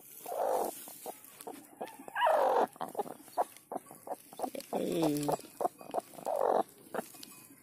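A broody hen on her newly hatched chicks in a straw nest gives a few short, harsh clucks as she is touched. One of them is pitched and falls, and straw rustles and crackles in between.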